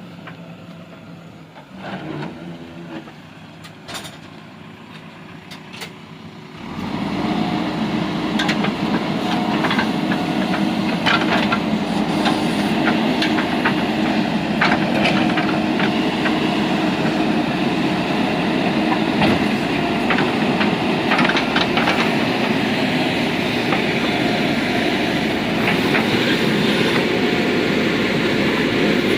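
JCB 3DX backhoe loader's diesel engine running hard under load, with metallic clanks and knocks throughout, coming in loudly about seven seconds in after a quieter stretch with a few knocks.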